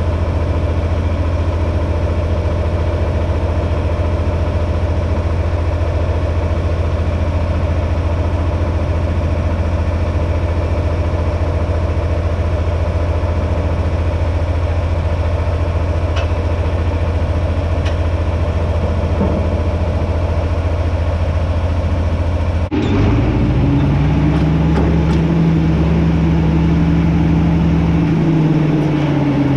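John Deere 4620's six-cylinder diesel engine idling steadily. A little over 20 seconds in, the engine picks up, its note rising and holding higher as the tractor drives, then dropping back near the end.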